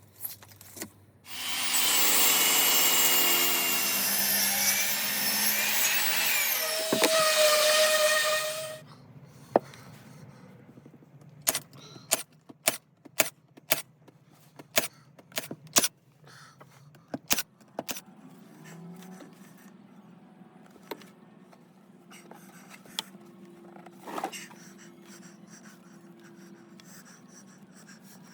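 A power saw cutting wood for about seven seconds, then cutting off, followed by a long run of scattered sharp clicks and knocks over a faint low hum.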